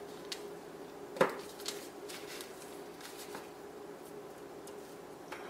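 Soft taps and rustles of gloved fingers handling moulded milk chocolates on parchment paper, with one sharper tap about a second in, over a faint steady hum.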